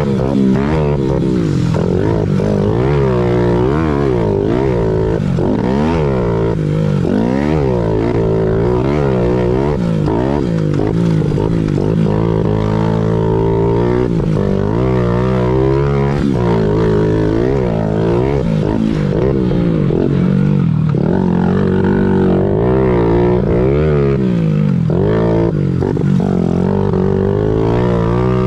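Single-cylinder four-stroke engine of a Honda CRF50 pit bike with an 88cc big-bore kit and race head, at full race pace. Its pitch climbs and drops over and over as the throttle is opened and closed through the turns and straights.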